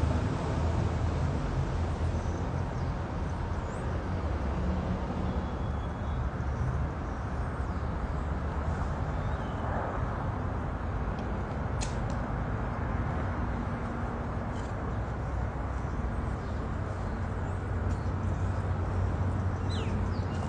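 Steady low rumble of outdoor background noise, with a few faint, short bird chirps high above it.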